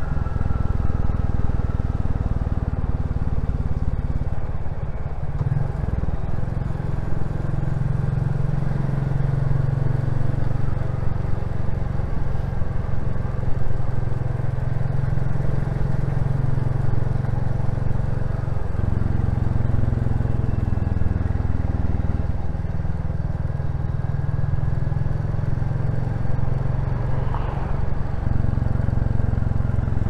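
Royal Enfield Classic 350's single-cylinder engine and exhaust running steadily while the bike is ridden, picked up on a lavalier mic, with its low note shifting slightly with the throttle.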